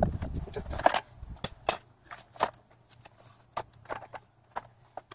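A car radiator being worked into place by hand in its radiator support. About the first second is rough handling noise, then about ten irregular sharp clicks and light knocks of plastic and metal parts knocking together.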